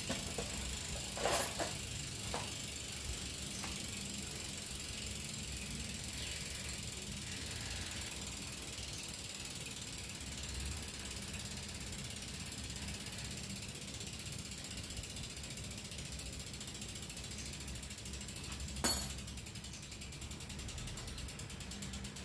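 Mountain bike's rear freewheel ratchet clicking as the drivetrain is turned during a teardown, with a few light tool clicks early on and one sharp click near the end.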